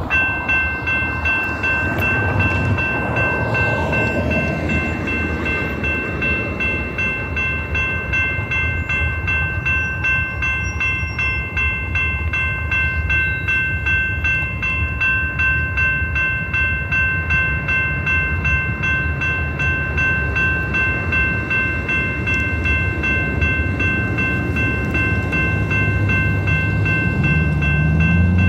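Railroad grade-crossing warning bells start up and ring rapidly and continuously as the crossing signals activate. A low rumble underneath grows louder near the end as the train approaches.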